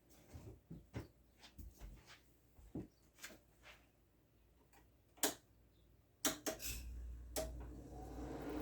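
A series of small sharp clicks and knocks, then about six and a half seconds in a newly installed room air conditioner starts up and runs with a steady hum that grows louder toward the end.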